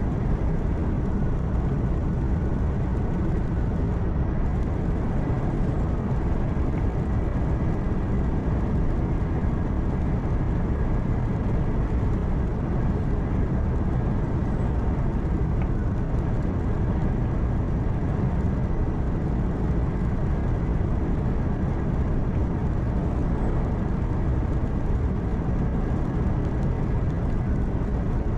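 Truck cab interior while driving at a steady highway speed: a continuous low engine hum mixed with road and tyre noise, unchanging throughout.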